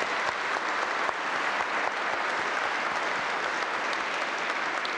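Church congregation applauding, a steady dense clapping held through the whole stretch.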